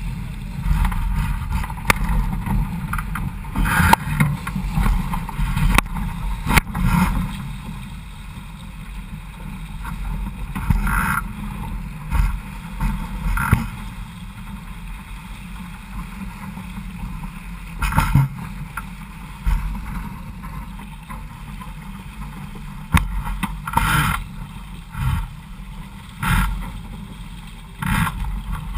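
Wind buffeting the boat-mounted microphone over the rush of water along the hull of a Vago sailing dinghy sailing fast. About ten louder bursts stand out as waves and spray slap against the bow.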